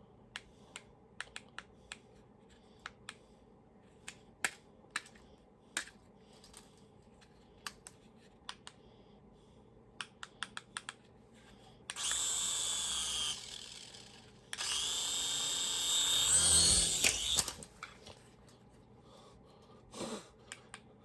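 Scattered small plastic clicks and taps from handling a flying toy helicopter, then its small electric propeller motor whirring twice: a short burst, then a longer one that rises in pitch and ends in a few knocks.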